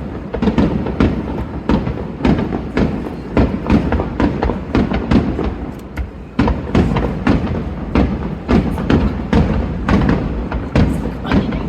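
Aerial fireworks going off in a rapid barrage: deep booms and bangs following one another several times a second.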